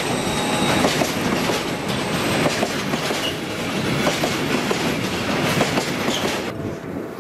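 Freight train of covered hopper wagons rolling past close by: a steady rumble of wheels on rail with irregular clicks over the rail joints. About six and a half seconds in, the sound drops away to a quieter, duller hiss.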